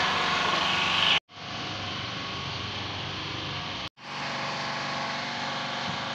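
Steady background hum and rumble, like a running engine or machine, broken twice by abrupt cuts to silence about one and four seconds in.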